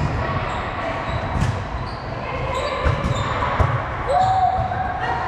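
Volleyball being hit and bouncing on a gym court: several dull thuds roughly a second apart, with a few short sneaker squeaks, all echoing in a large hall.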